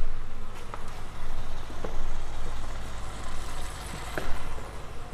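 A steady low rumble with a few scattered faint clicks.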